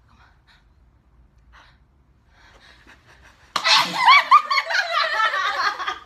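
A young woman sneezes sharply about three and a half seconds in, then breaks into quick high-pitched giggling.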